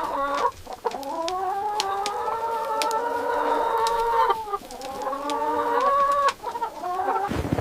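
An animal's long, drawn-out calls, rising and then falling in pitch: one lasting about three and a half seconds, then a shorter one.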